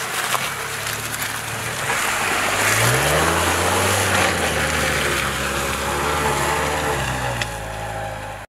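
Dacia Duster 4x4's engine pulling under load off-road, its note rising about three seconds in. Through the middle there is a loud hiss and splash of tyres churning through mud and water. The engine then runs on steadily and cuts off suddenly at the end.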